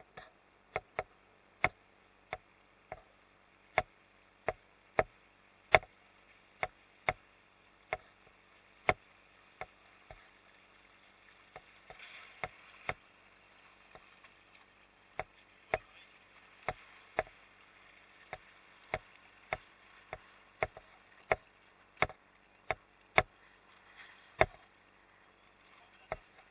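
Small waves slapping against a boat's hull in sharp, irregular knocks, about one or two a second, over a faint steady hiss of water.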